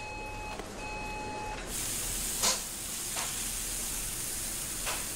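Two electronic beeps, the second longer. Then, from about a second and a half in, a steady sizzling hiss of food frying, with a few light clicks.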